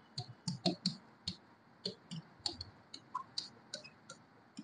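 Felt-tip marker writing on a writing board: a faint, irregular run of small clicks and taps, about three or four a second, as the tip strikes and lifts off the surface between strokes.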